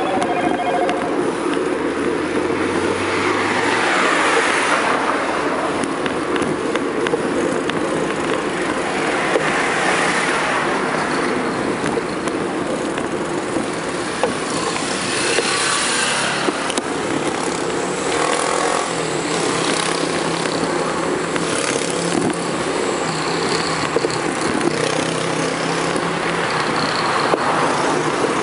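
Cars passing on the road, several swelling up and fading one after another, over a steady rush of wind and movement noise from riding a bicycle alongside the traffic.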